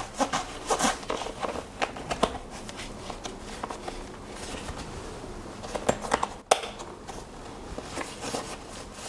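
Small fabric bag and shoulder strap being handled as the strap is fitted to the bag's mounting points: scattered rustling of the fabric and webbing with short clicks, one sharper click about six and a half seconds in.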